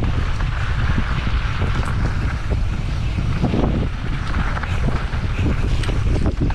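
Wind buffeting a moving action camera's microphone: a steady rushing rumble, with scattered soft knocks.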